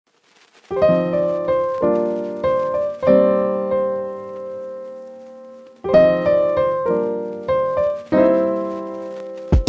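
Background piano music. After a brief silence, chords are struck one after another, and one chord is held and left to ring for about three seconds in the middle.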